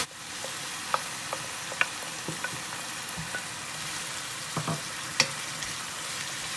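Beef, onion and freshly added diced tomatoes sizzling steadily in a frying pan, stirred with a wooden spatula that taps and scrapes against the pan several times.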